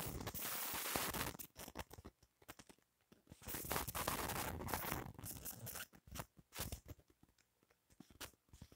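Rustling, scratching noise in two stretches of about one and a half and two and a half seconds, with scattered crackles between them and after.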